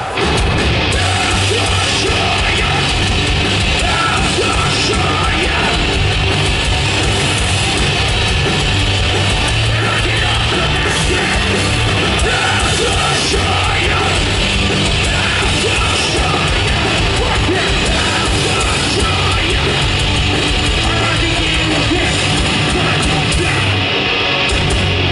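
Live hardcore punk / sludge metal band playing at full volume, with shouted vocals over distorted guitar, bass and drums. The full band comes back in suddenly right at the start after a brief drop.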